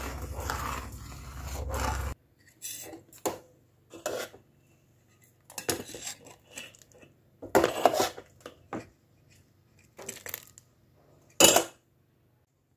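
Metal ladle scraping and knocking against an aluminium pot and a steel bowl as thick rice payesh is stirred, scooped and served, in scattered short clinks with one sharper knock near the end. A steady low hum under the first two seconds stops abruptly.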